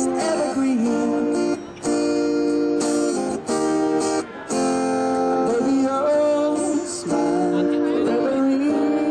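Acoustic guitar strumming a slow ballad, with a singer's voice faintly in places.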